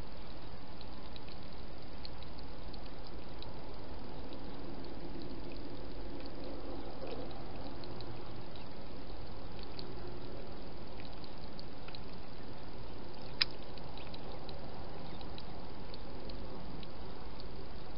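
Wild hedgehog lapping water from a shallow dish: faint wet clicks over a steady hiss, with one sharp click about thirteen seconds in.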